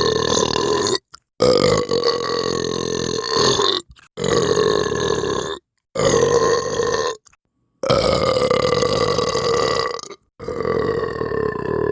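A string of long, drawn-out belches, about six in a row, each held at a fairly steady pitch for one to two and a half seconds. Each one breaks off into a sudden dead silence before the next begins.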